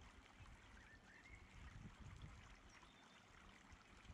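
Near silence: faint steady background hiss and low rumble, with a few faint high chirps.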